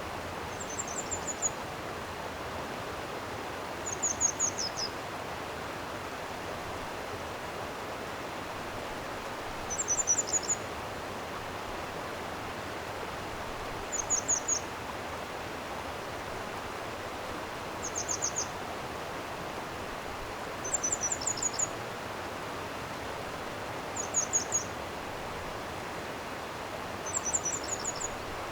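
Stream water flowing steadily, with a small songbird singing short, high phrases of a few quick falling notes about every three to four seconds.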